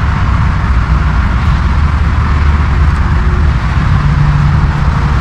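Steady, loud outdoor background noise: a low rumble with a hiss over it, running without a break.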